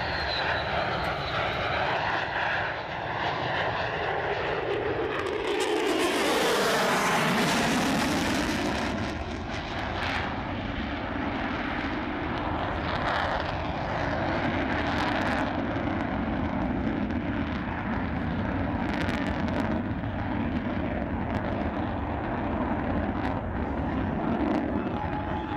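Twin General Electric F110 turbofans of an F-14B Tomcat passing by. The jet noise falls in pitch as it goes past about six seconds in, loudest there, then goes on as a steady rumble.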